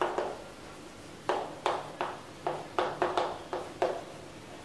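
Chalk writing on a blackboard: about ten short, sharp taps and scrapes at an uneven pace as letters are written.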